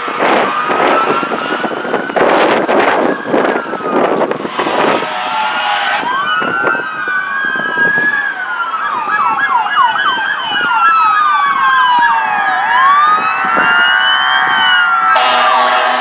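Running footsteps and camera handling, with a siren wailing behind them, for the first five seconds. Then several emergency-vehicle sirens wailing and yelping at once, rising and falling over one another. Near the end a fire truck's air horn comes in under the sirens.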